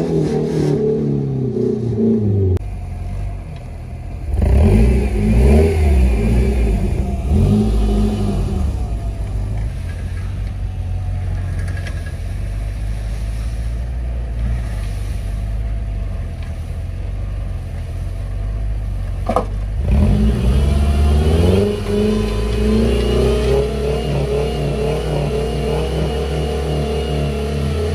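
Off-road truck engines revving in deep snow, the revs climbing and dropping again several times, loudest about five seconds in and again near twenty seconds, with steady running between.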